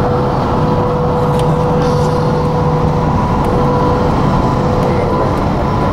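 Steady road and traffic noise from a moving car driving close beside a tractor-trailer. A steady whine runs through it and stops about five seconds in.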